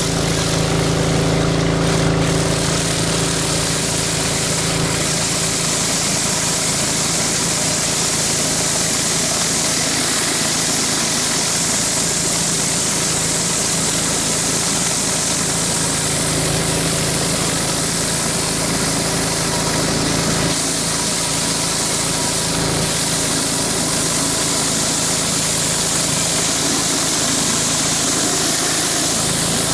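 Engine-driven pressure washer running steadily under load, with the hiss of a spinning surface cleaner blasting water onto concrete.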